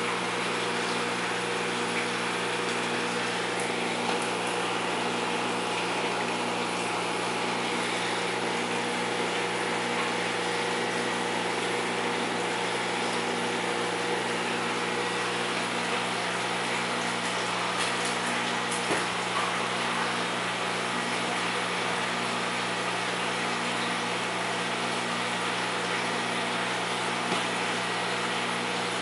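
Aquarium wet/dry filter system running: a steady electric pump hum under a constant hiss of high-flow water.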